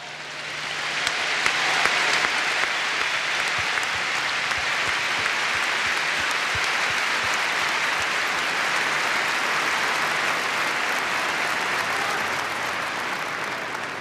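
Large stadium crowd applauding, swelling over the first couple of seconds, holding steady, then easing off near the end.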